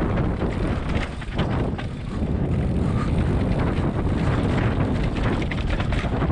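Wind buffeting the microphone over the knobby tyres of a mountain bike rolling fast on a dirt singletrack, with constant small clicks and rattles from the bike over the rough ground. The noise eases briefly about a second in.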